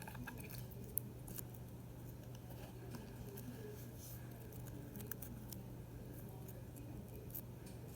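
Sticky homemade slime being handled, making faint scattered clicks and squelches over a low steady hum.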